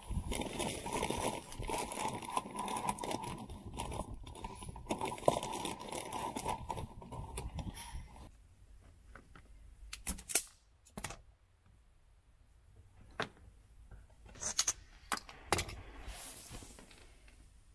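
Crumpled aluminium-foil insulation crinkling as hands work a wire through the van's body cavity. The crinkling stops about eight seconds in, giving way to a few scattered light clicks and taps.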